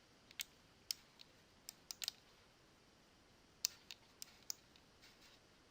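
Faint computer mouse clicks, a dozen or so at irregular intervals, some in quick pairs, over quiet room tone.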